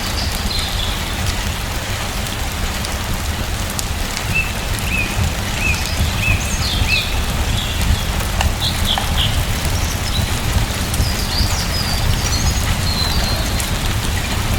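Steady rain with a deep low rumble under it, and birds chirping over the top in several short runs of calls.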